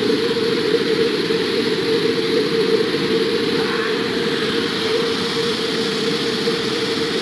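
Muddy flood torrent rushing past, a steady, dense rumbling noise of churning water and debris.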